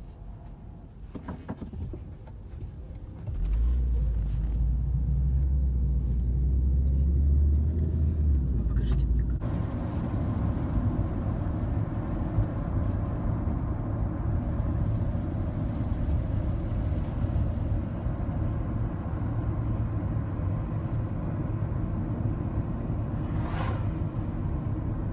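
A car being driven, heard from inside it: a low engine and road rumble that gets much louder about three seconds in. About nine seconds in, a steady rushing road and wind noise joins it.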